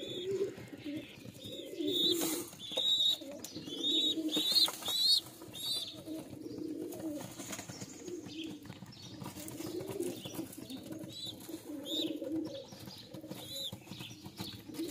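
Domestic pigeons cooing in a low warble, with short high-pitched chirps now and then, most of them a few seconds in.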